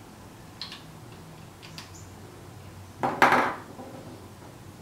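A few light clicks, then about three seconds in a short, louder clatter of small plastic food-colouring bottles knocking against each other and the tray as one is put back among the others.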